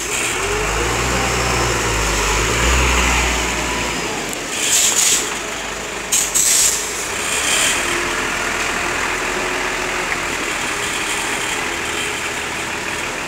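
Concrete mixer truck's diesel engine running with a deep rumble, heaviest in the first four seconds, and two short sharp hisses of air about five and six and a half seconds in.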